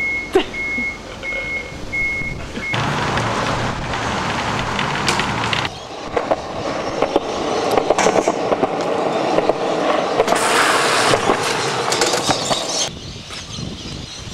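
BMX bike rolling on concrete: tyre and chain noise with scrapes, clicks and knocks from riding the ledges. It comes in several short stretches that change abruptly, with the loudest, hissiest scraping near the end.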